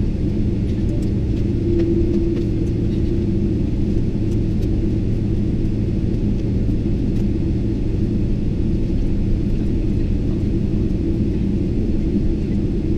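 Sped-up cabin noise inside a Boeing 777-300ER on its way to takeoff: a steady low rumble with a faint hum above it.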